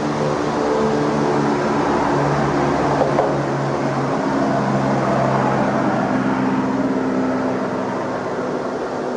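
Background music of held low notes that shift every second or two, over a steady rushing noise.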